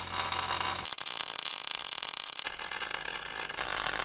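Stick welding: the electric arc crackling and sizzling steadily as the rod burns against steel plate, changing abruptly about a second in and again near the end.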